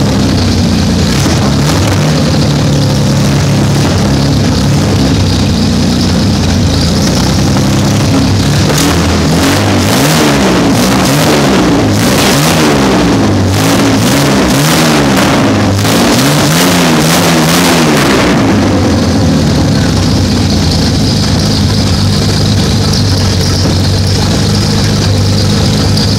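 Jaguar 4.2-litre DOHC straight-six, converted to carburetors, running on its first start-up: it idles, is revved up and down in a series of quick throttle blips for about ten seconds in the middle, then settles back to a steady idle.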